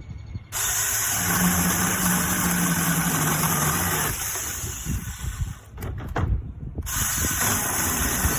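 Battery-powered brushless mini chainsaw running and cutting through wood with a high electric whine. It stops for about a second a little after five seconds in, then starts again.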